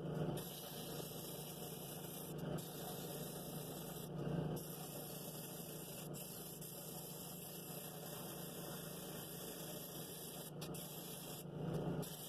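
Drill press running steadily with a 2-inch flexible foam sanding pad spinning in the chuck, with a few brief louder rasps as the cherry wood bowl is pressed against the 60-grit disc.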